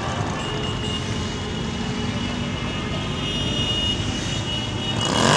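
Many motorcycle engines running as a column of bikes rides past in a dense, steady rumble. About five seconds in, one engine gets louder and rises in pitch as a bike accelerates past.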